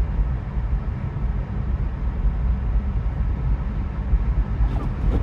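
Steady low road and tyre rumble heard inside a Tesla's cabin as the car drives down a snowy road.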